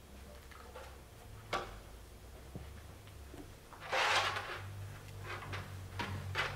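Scattered light clicks and knocks, with a brief rustle about four seconds in, over a low steady hum.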